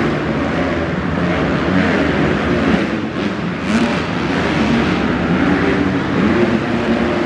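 Several motocross dirt bikes revving hard around the track, their engine notes rising and falling as they accelerate and back off, inside an indoor arena hall.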